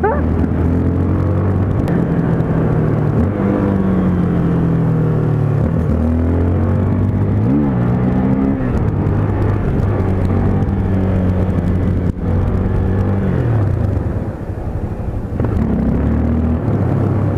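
Motorcycle engine running under way, its pitch rising and falling with the throttle and gear changes, with a quick rev blip about halfway through. Wind buffets the helmet-mounted microphone throughout.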